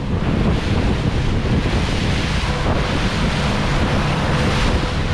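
Wind buffeting the microphone over water rushing and slapping against the hull of a deck boat moving slowly through choppy water, with a faint steady hum underneath from the boat's engine.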